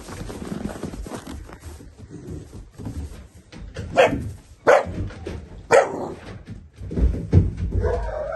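Two-month-old Central Asian Shepherd (alabai) puppies barking: three short, sharp barks in the middle, then more yapping near the end, over low thumps and scuffling.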